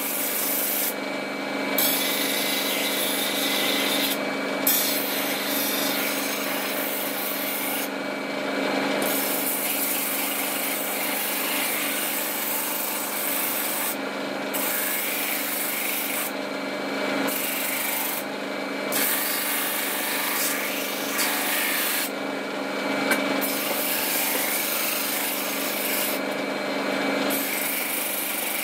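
Rusty steel machete blade pressed against a spinning sandpaper drum, a steady abrasive hiss over the hum of the machine, as the rust is sanded off. The hiss drops away briefly several times when the blade comes off the drum.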